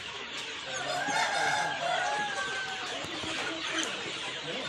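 A flock of young Khmer village chickens clucking in their pen, with a rooster crowing one long, drawn-out call starting about a second in.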